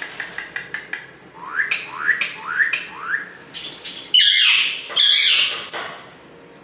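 Pet birds, a common myna and an Alexandrine parakeet, calling. A run of quick clicking chirps comes first, then four short rising whistled calls about half a second apart, then two loud, harsh squawks of under a second each.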